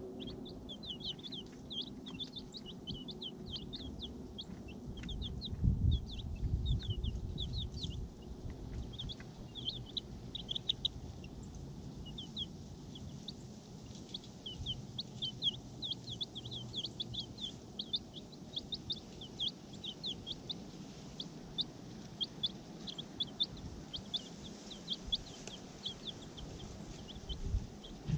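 Two-week-old Rhode Island Red chicks peeping, with many short high peeps in quick runs throughout. A brief low rumble comes about six seconds in.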